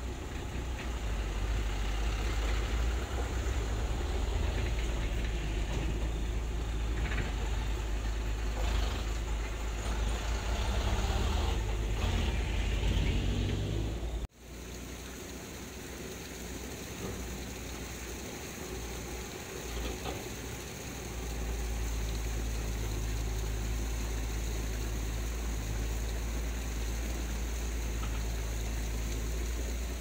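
Swollen stream rushing over rocks: a steady rushing noise with a deep rumble. It breaks off abruptly about halfway through, comes back quieter, and grows louder again about two-thirds of the way in.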